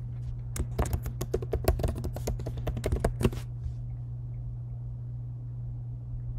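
Typing on a computer keyboard: a quick run of keystrokes entering a password, starting about half a second in and stopping after about three seconds. A steady low hum runs underneath.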